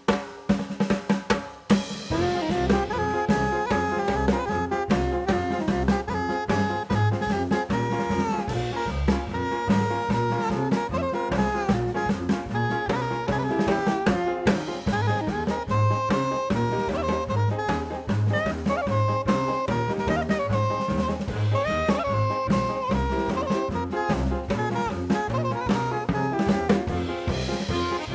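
Background music with a steady beat: a few drum hits, then the full track with a melody over a pulsing bass comes in about two seconds in.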